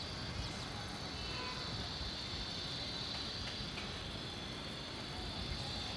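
Steady outdoor city ambience: a low rumble of distant traffic under a high, steady buzz.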